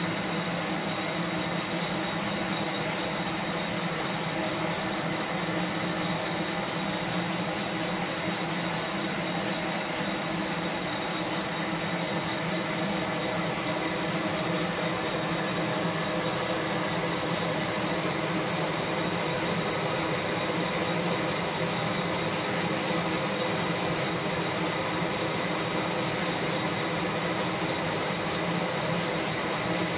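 Fracino Roastilino hot-air coffee roaster running mid-roast: a steady rush of its blower fan with some rattle as the beans tumble in the glass chamber, growing slightly louder towards the end.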